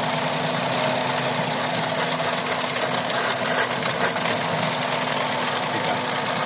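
Suzuki Celerio engine idling steadily, in a car being diagnosed for a misfire, with a brief hiss about two seconds in.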